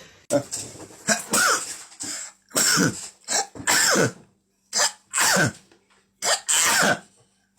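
About five loud human sneezes one after another, each a short lead-in followed by a louder, longer burst that falls in pitch.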